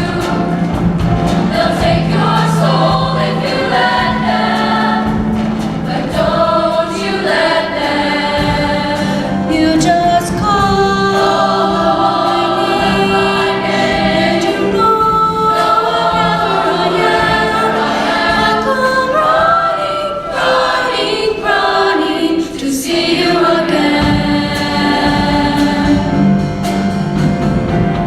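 Show choir singing in several-part harmony, with held and gliding notes over a steady low accompaniment.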